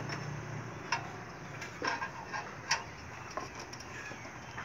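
A few light metal clicks, roughly a second apart, as stiff old steel tie wire is twisted around rebar with a hand tool.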